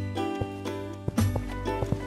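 Cartoon background music with short notes that change pitch quickly, and a few light percussive ticks.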